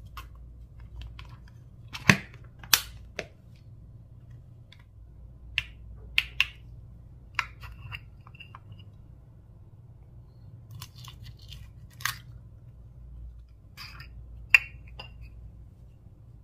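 Slime mixed with mini balls being squished and mixed: scattered sharp clicks and pops, about a dozen, the loudest about two seconds in and near the end, over a faint low hum.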